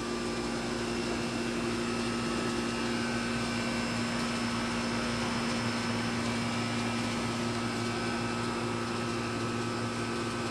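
A steady mechanical hum with several held tones, running unchanged at an even level.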